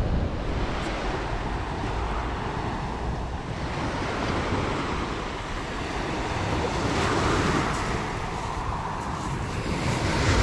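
Small waves breaking and washing over a shingle beach, the surf swelling and easing every few seconds, with wind rumbling on the microphone.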